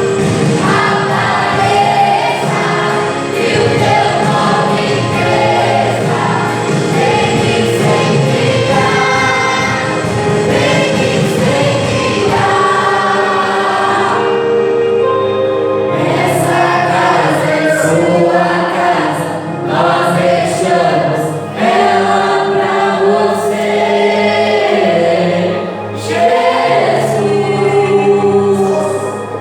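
Church praise group singing a Christian worship song in several voices, with instrumental accompaniment.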